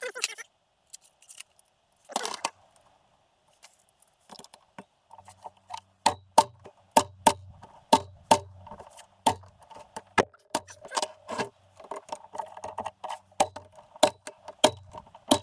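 Sharp metallic clicks and clinks of tools and small engine parts being handled, a few at first, then coming quickly and irregularly from about five seconds in.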